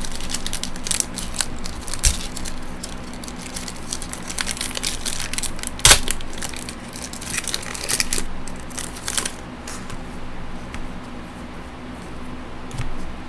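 Foil trading-card pack wrapper being torn open and crinkled in the hands: a run of irregular crackles, with one sharp, loud crackle about six seconds in.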